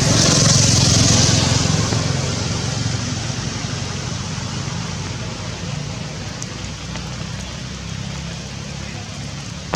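A motor vehicle passing close by, loudest in the first couple of seconds and then fading away, with a low engine rumble under its noise.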